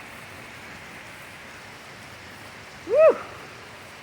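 Rain falling steadily, an even hiss throughout. About three seconds in, a voice gives one short "Woo!" that rises and falls in pitch.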